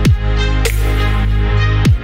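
Electronic dance music with a steady deep bass line and repeated falling pitch sweeps.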